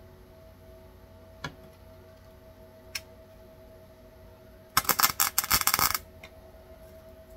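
MIG welder arc crackling for about a second as a tack weld goes onto a steel patch panel, after two short single clicks. A faint steady hum runs underneath.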